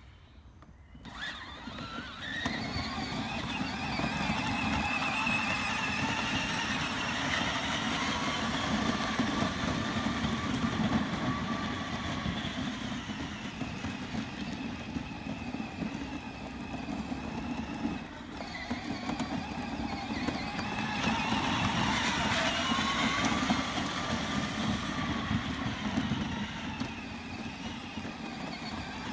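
Children's battery-powered ride-on quad: its electric drive motor and gearbox whining, the pitch rising and falling as it speeds up and slows, over a steady low rumble. The sound drops away at the start and picks up after about two seconds, with another brief dip a little past halfway.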